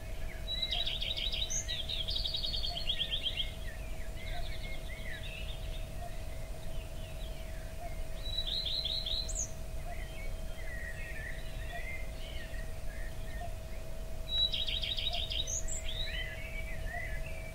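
Wild birds chirping, with a fast trilled song heard three times among scattered short calls, over a steady low outdoor rumble.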